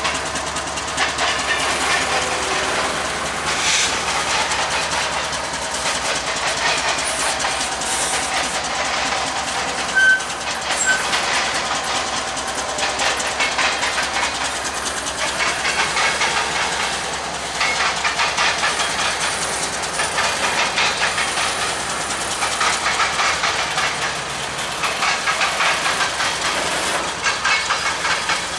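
Intermodal freight train of spine cars loaded with trailers and containers rolling past at close range: steel wheels clattering steadily over the rail joints under a continuous hiss of wheel-on-rail noise.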